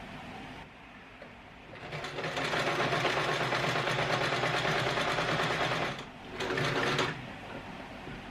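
Electric sewing machine stitching: a steady run of about four seconds beginning about two seconds in, a brief stop, then a short second burst.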